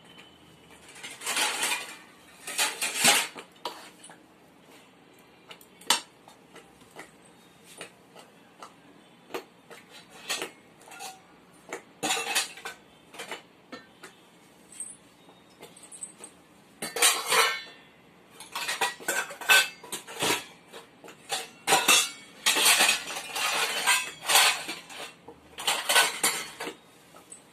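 A metal spoon scraping and clinking against a vessel in irregular bursts of rapid clicks and scrapes, with quiet gaps between them.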